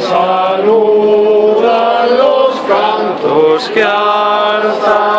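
Group of Rocío pilgrims singing a devotional song together, mostly men's voices, with long held notes.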